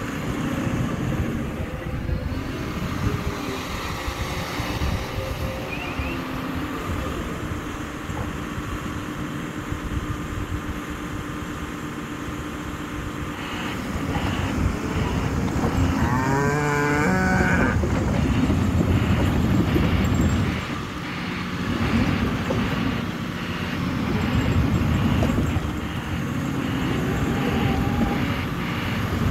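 Cat 330F L crawler excavator's diesel engine running steadily, louder about halfway through as the machine works and moves. A wavering squeal lasts about a second and a half soon after.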